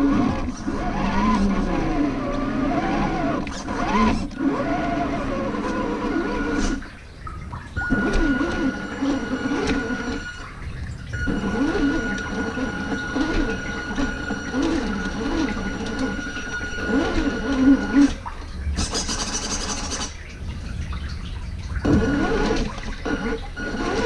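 RC4WD Trail Finder 2 scale RC truck driving, its electric motor and gear train whining up and down in pitch with the throttle, with tyres scraping over ground; it stops and starts a few times. The sound echoes inside a corrugated culvert pipe, and there is a brief burst of hissing about three quarters of the way in.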